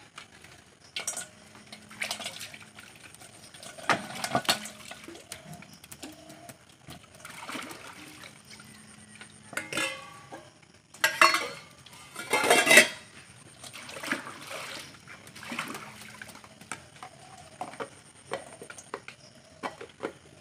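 Small fish and water being shaken out of a mesh fish trap into a stainless steel bowl: irregular clinks, taps and splashes on the metal, with a louder flurry a little past halfway.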